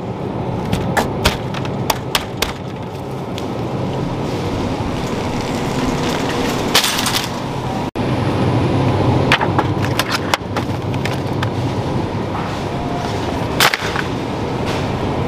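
Shopping cart rolling across a store floor: a steady rumble of the wheels with many scattered clicks and knocks. The sound drops out for an instant just past halfway.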